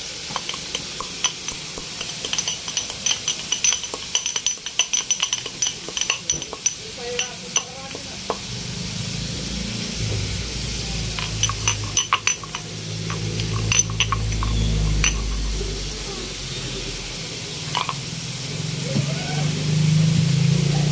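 Whole black peppercorns being pounded in a stone mortar with a pestle: quick runs of sharp clinking strikes, each ringing briefly, in two spells. A low steady rumble comes in about halfway through.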